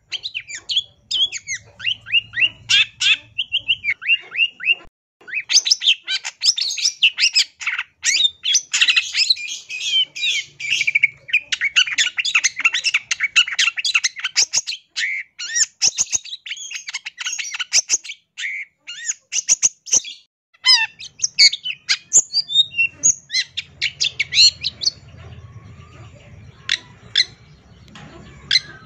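Long-tailed shrike (cendet) singing a fast, varied song of chattering, harsh and whistled notes that is full of mimicked phrases. The song breaks off briefly about five seconds in, runs densely for the next ten seconds or so, and thins to scattered notes near the end.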